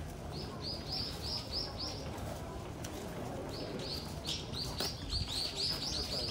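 A bird calling in rapid runs of short, repeated high chirps, about four a second: one brief run early on, then a longer run from a little past the middle.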